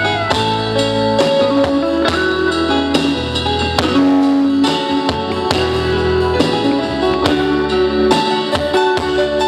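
Live band playing an instrumental passage: a guitar melody over bass and drum kit.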